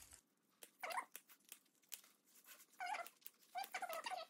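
Scissors cutting through moist, rubbery kelp: light clicks of the blades and about four short squeaks as they slice the fronds.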